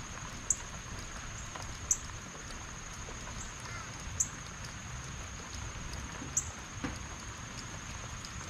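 Steady rain falling, with a thin, steady high-pitched whine over it and four sharp ticks at irregular gaps of one and a half to two seconds.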